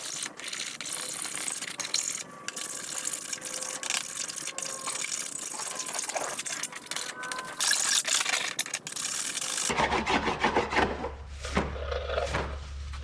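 Hand file scraping back and forth over scratched ATV plastic in many short strokes, smoothing the scratches down. About ten seconds in the scraping stops and a steady low hum takes over, with a few knocks from handling.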